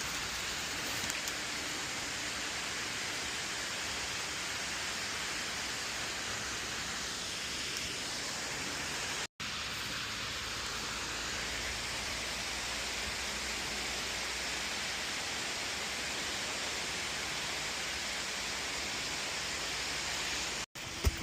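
Waterfall rushing, a steady even noise of falling water. It breaks off for an instant about nine seconds in and again near the end.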